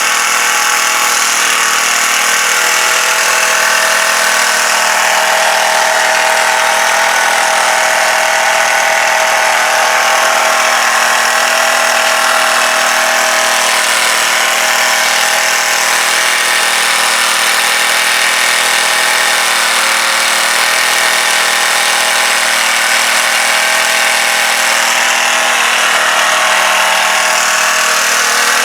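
Small petrol engine of a Clarke pressure washer running steadily on choke, its speed wavering slightly. It will only run on choke, a sign that the carburettor needs more work.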